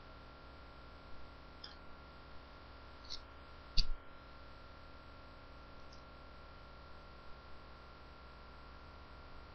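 Quiet room tone with a steady electrical hum and a thin steady tone, broken by a few faint clicks and one sharper tap about four seconds in.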